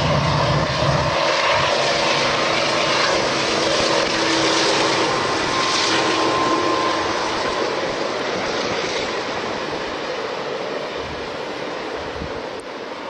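Conrail diesel-electric freight locomotives working hard under load, a heavy engine roar that gradually gets quieter, with a faint steady whine over it through the first half.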